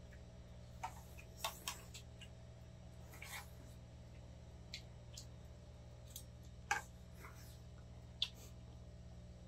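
Chopsticks and spoons clicking and clinking against metal bowls and pans, about ten scattered light taps with the sharpest a little after two-thirds of the way in, over a steady low hum.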